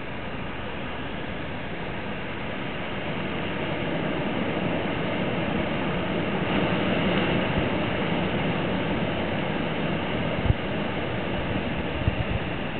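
Water released through the opened dam spill gate pouring down the concrete spillway into the plunge pool: a steady rushing that builds in loudness over the first several seconds as the flow comes up. A couple of short low thumps come near the end.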